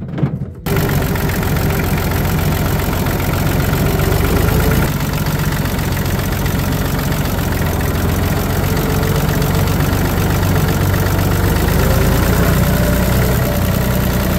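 Tractor engine running steadily, heard up close from the driver's seat while the tractor drives. The engine sound cuts in suddenly about half a second in.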